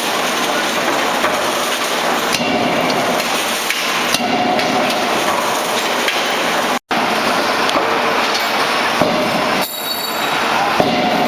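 A 16 kJ CNC hydraulic double-acting forging hammer striking, with sharp blows standing out from loud, continuous clattering noise. The sound drops out completely for an instant a little past halfway.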